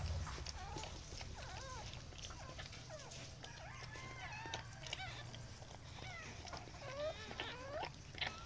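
Newborn puppies squeaking and whimpering as they huddle against their mother: many short squeaks rising and falling in pitch, often overlapping, with a faint low rumble underneath.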